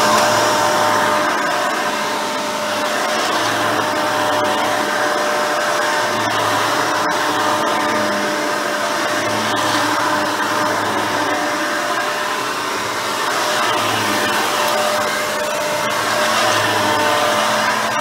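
Hoover Elite 350 upright vacuum running on carpet, its motor and seven-blade fan giving a steady whine over the rush of air, with the dual-row bristle brush roll beating the pile. The loudness rises and falls slightly as it is pushed back and forth.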